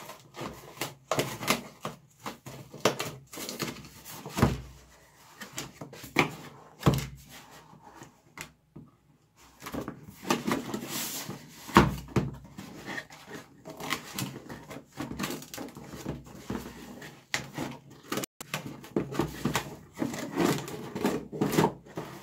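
Scissors cutting open a cardboard box, with scattered knocks, scrapes and rustles of the cardboard being handled. The cutting and scraping grow busier about halfway through, after a brief lull.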